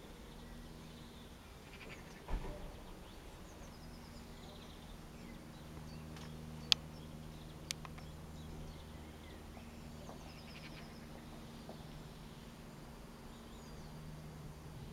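Low, steady drone of a light propeller aircraft overhead, growing louder about halfway through. Small birds chirp faintly, with a thump about two seconds in and two sharp clicks a second apart near the middle.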